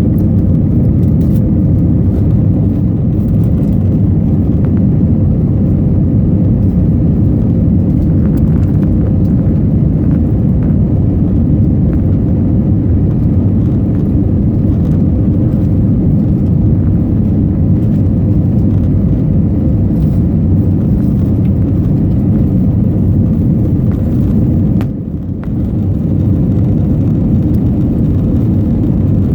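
Steady cabin roar of an Airbus A321neo in flight, heard from inside the economy cabin: its CFM LEAP-1A engines and the airflow make a loud, even low rumble with a faint steady hum. The rumble drops briefly about 25 seconds in.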